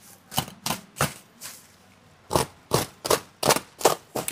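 Box cutter slicing through the twine and woven plastic of a parcel sack: about ten short, sharp cutting strokes in two irregular runs, with a pause of nearly a second between them.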